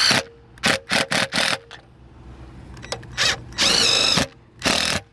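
Cordless drill driving screws through the bottom bracket of an RV awning support arm into the motorhome wall. The motor whines in several short bursts over the first second and a half, then runs in longer bursts from about three seconds in to near the end, its pitch dipping and rising as each screw seats.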